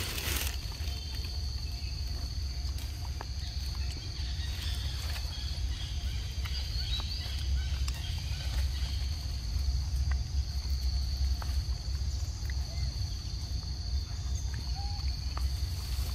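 Forest insects droning steadily in two high tones over a low rumble, with scattered soft clicks and smacks from a macaque biting and chewing a ripe mango.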